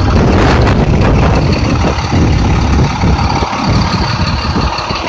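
Public transit bus engine idling, a loud steady low rumble.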